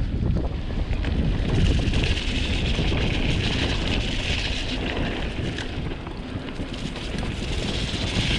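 Wind buffeting the camera microphone over the rumble of a mountain bike being ridden along a muddy trail. A hissing tyre noise swells about two seconds in and eases off near six seconds.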